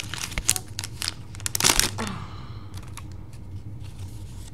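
Foil trading-card booster pack wrapper crinkling and tearing, a quick run of sharp rustles over the first two seconds, loudest just before the two-second mark, then quieter handling of the cards with a few light clicks.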